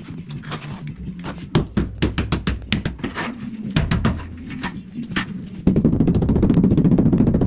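Rubber mallet tapping rapidly on a large 120x60 ceramic wall tile to bed it into the adhesive, a fast run of strikes starting about two-thirds of the way in. Before that, scattered knocks and scrapes as the tile is pressed and slid into place.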